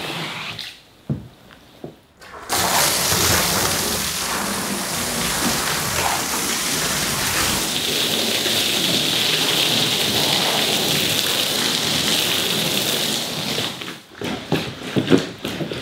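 Water spraying hard from a hand-held hose wand onto a vinyl floor liner: a steady, loud hiss that starts suddenly a couple of seconds in and cuts off near the end, followed by a few knocks.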